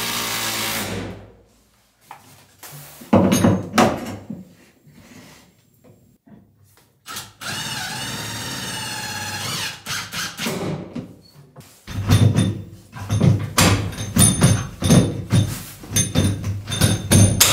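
Cordless drill running in two bursts as it drives screws, the first ending about a second in and the second lasting about three seconds midway, its pitch wavering under load. Between and after come knocks, then a quick run of clattering thumps near the end.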